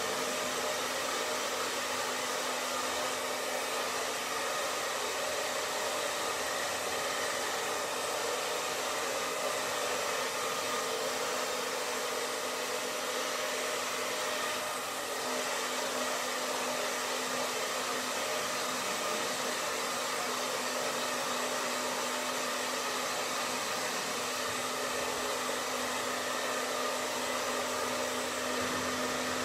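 Handheld hair dryer running steadily, a continuous rush of air with a low motor hum, blown at close range over a wet gouache painting to dry it. The sound dips briefly about halfway through.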